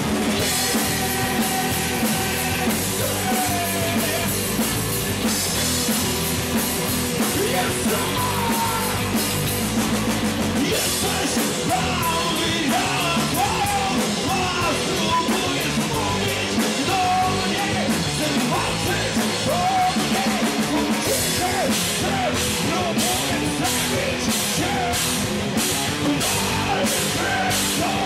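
Live rock band playing loudly: electric guitars, bass guitar and a drum kit, with a singer shouting and singing over them into a microphone.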